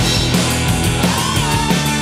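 Rock music soundtrack with a steady drum beat; about a second in, a lead line holds a long, bending note.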